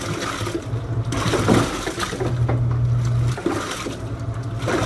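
Avanti STW20D2P portable washer agitating a load: its pulsator motor hums in runs of about a second with short pauses between, while water and clothes slosh in the stainless steel tub.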